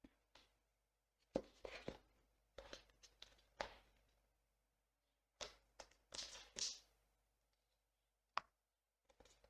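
An iPhone 13 Pro Max cardboard box handled in the hands: scattered taps and knocks of fingers on the box, in small clusters, with a longer rubbing scrape a little past the middle and a single sharp tap near the end.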